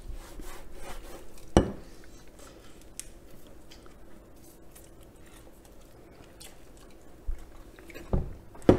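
Biting and chewing of crispy fried chicken, with faint crackling ticks throughout. A sharp knock comes about a second and a half in, and a few more come near the end.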